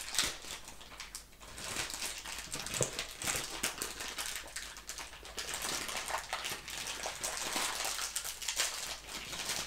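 Plastic bag crinkling and rustling with irregular small crackles as a boxed USB cable in its clear plastic wrapping is handled and unwrapped.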